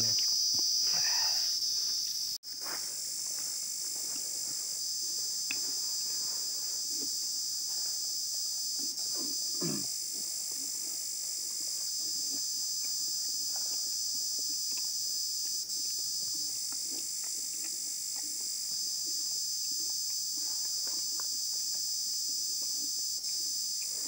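Steady high-pitched chorus of insects, unbroken except for a brief drop about two and a half seconds in.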